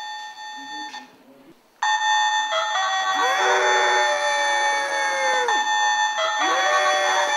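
Electronic toy tones: a steady chime-like chord that stops about a second in, then comes back louder with pitches sliding down and back up, and cuts off suddenly near the end.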